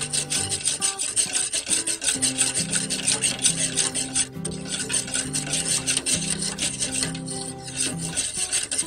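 Wire balloon whisk scraping fast and rhythmically, about six strokes a second, against the bottom and sides of an aluminium pot while stirring a thin, heating chocolate mixture continuously so it thickens without scorching. There is a brief pause a little after four seconds.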